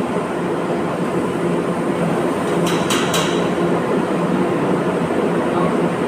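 Steady machine drone with a low buzzing hum. About three seconds in come three quick metallic clicks or taps.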